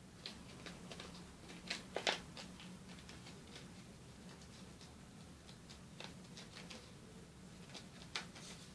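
Paper crackling and rustling as a sheet of origami paper is folded and creased by hand, in short irregular crisp clicks, with a louder cluster about two seconds in and a sharp crackle near the end.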